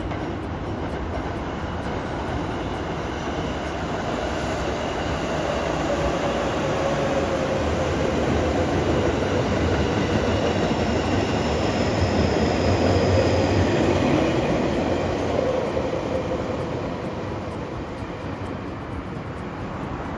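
A train passing by, a steady rail rumble that grows louder to a peak about two-thirds of the way through and then fades, with faint high whining tones over it.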